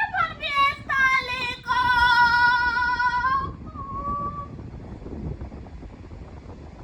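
A very high-pitched voice singing wordlessly: a few short notes that slide up and down, then one long held note of about two seconds, dying away before the middle.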